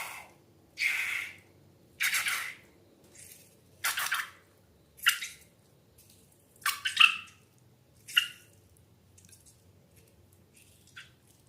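A series of short wet splats and squelches of slime mixture, about one a second, fading to faint small clicks for the last three seconds.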